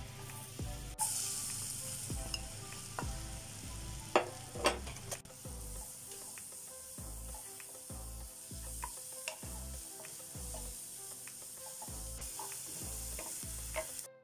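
Sliced onions sizzling in hot oil in a nonstick wok, stirred with a wooden spatula that knocks sharply against the pan a few times around four to five seconds in. A background music beat pulses underneath.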